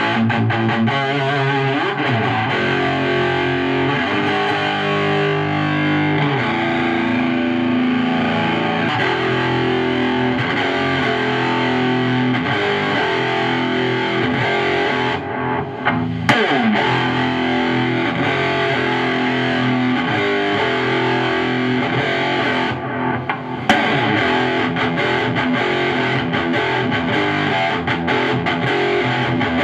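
Electric guitar played through an Ibanez TS-9 Tube Screamer–style overdrive pedal with its drive turned all the way up, into a tube amp's high-gain channel: distorted, sustained chords and notes. The playing breaks off briefly twice, about halfway and about three quarters through, each break ending in a sharp click.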